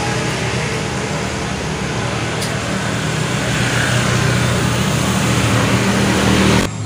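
An engine idling steadily, with a low even hum, growing a little louder after about four seconds.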